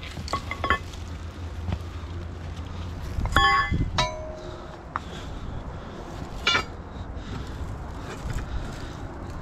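Steel crowbar clanking against rock: three ringing metal strikes. The first two come close together in the middle, and the second rings on for most of a second. The third comes a couple of seconds later.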